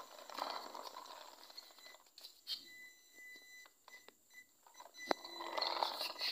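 Small electric motor of a homemade cardboard RC pickup truck whirring as it drives, dropping away in the middle and returning near the end. A steady, high electronic tone runs throughout and breaks into short beeps while the motor is quiet.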